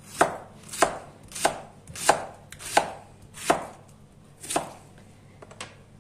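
Chef's knife slicing red cabbage on a plastic cutting board: seven slow, evenly spaced cuts, about one every two-thirds of a second, with a slightly longer pause before the last.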